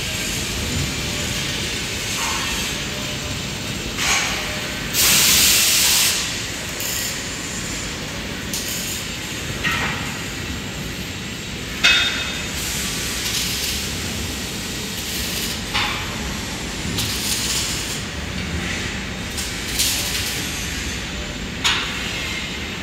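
Steady workshop background noise, broken by short bursts of hiss (the loudest and longest about five seconds in) and several sharp knocks.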